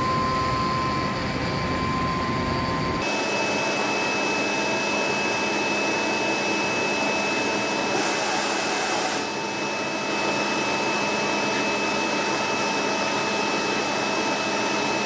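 CNC mill-turn machine milling the teeth of a globoid worm shaft: a steady machine whir with a thin, steady high whine. The sound changes abruptly about 3 s in, and a hiss comes up for about a second near the middle.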